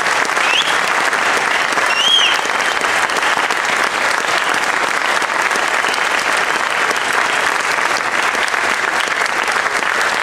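Audience applauding steadily after a choir performance, with two short high-pitched calls from the crowd in the first couple of seconds.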